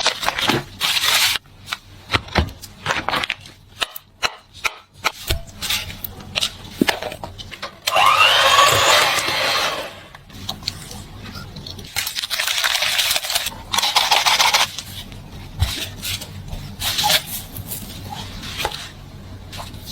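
Kitchen food-preparation sounds: cutting, scraping and knocking of utensils on a board, with many sharp clicks and a louder, noisier stretch about eight seconds in.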